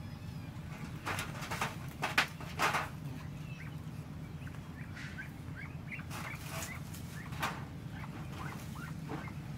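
A trapped black chicken flapping its wings in a few rustling bursts as it is handled, loudest about two seconds in, followed by a run of short chirping bird calls.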